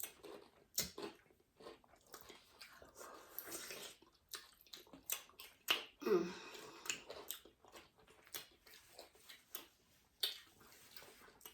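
A person chewing and biting into boiled seafood close to the microphone, with irregular small clicks and crackles of eating.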